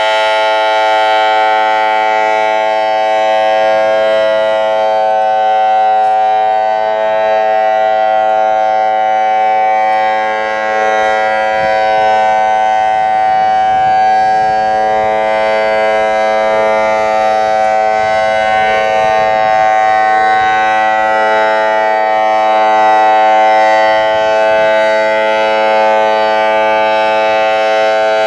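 ACA Alertronic AL-6000R electronic outdoor warning siren sounding its steady alert signal, a held two-tone chord that neither rises nor falls.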